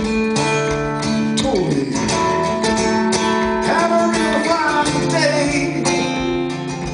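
Cutaway steel-string acoustic guitar played live, strummed and picked in a continuous song accompaniment.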